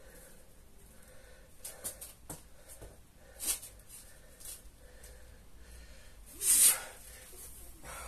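A person breathing hard from kettlebell swings: a few short, noisy exhalations, the loudest and longest about six and a half seconds in.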